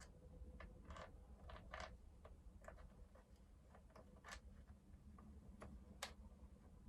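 Near silence broken by faint, irregular light clicks and taps of a bolt and small metal parts being handled while threading a bolt into a chainsaw's anti-vibration mount.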